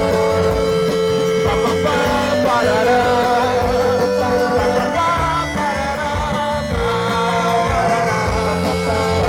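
Live band music: an instrumental stretch between sung lines, led by guitars over a steady beat, with one long held note through most of it.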